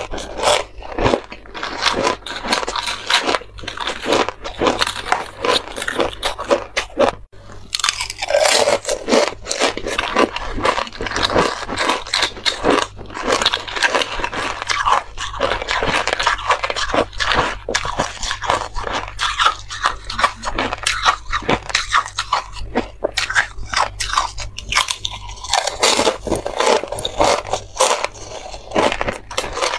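Close-miked biting and crunching of thin frozen buckwheat ice chips, many sharp crunches in quick succession with a short pause about seven seconds in. Near the end the ice is coated in matcha powder.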